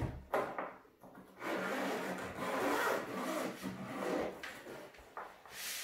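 Zip being pulled open around a zippered hard-shell carrying case, one continuous scraping run of about three seconds starting a little over a second in.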